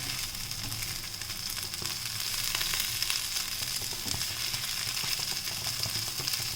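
Shredded spiced chicken sizzling in oil in a pan on the stove: a steady hiss with small crackles.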